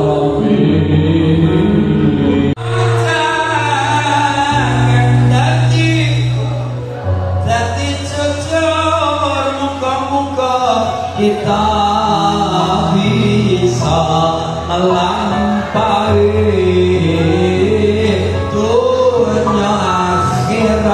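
A man singing an Islamic devotional song in a melodious, ornamented voice through a microphone and PA. Low accompaniment notes are held underneath and change every few seconds.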